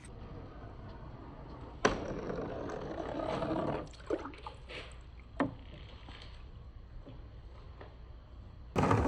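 Glass marbles rolling down a handmade wooden marble run: a sharp click, then about two seconds of rolling, a few more clicks as the marbles hit the track, and a much louder clatter starting near the end.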